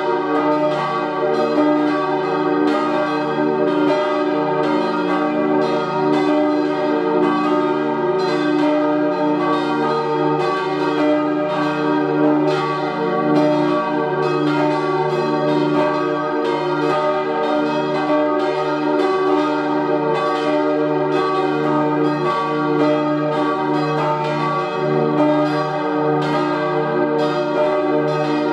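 Church bells cast in 1888 by Rüetschi of Aarau ringing a peal, strike after strike following one another steadily, several notes sounding together.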